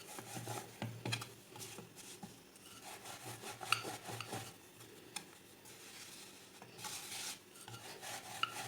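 Rolling pin rolling a ball of maida dough out thin on a board: repeated rubbing strokes with small clicks and knocks.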